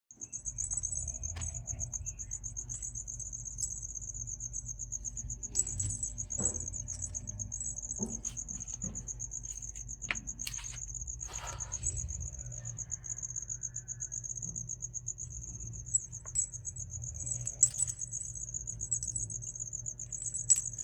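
An insect trills steadily on a high, rapidly pulsing note throughout. Scattered short clicks and knocks sound over it.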